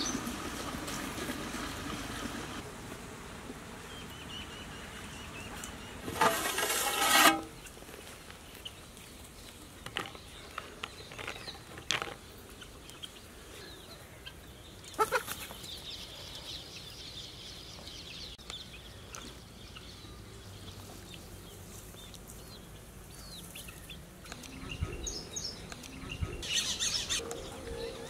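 Rural outdoor ambience with birds calling. About six seconds in there is one louder call lasting about a second, and a few short clicks come later.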